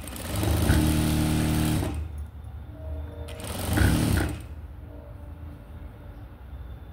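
Sewing machine stitching a seam in two runs: a longer run of about a second and a half, then a short run about four seconds in that slows as it stops.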